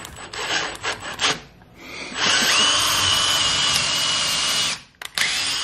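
Ryobi 18V cordless drill boring a pilot hole into the wall. The motor whine rises as it spins up, holds steady for about two and a half seconds, then stops. A few short taps and knocks come before it starts.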